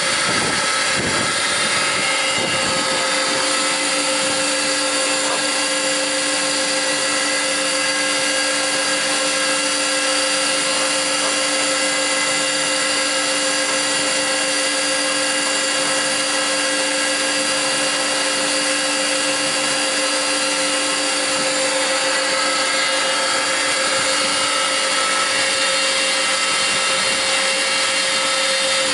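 Weinig Profimat 22N four-sided planer-moulder running, its motors and cutter spindles giving a steady whine made of several fixed tones over a hiss.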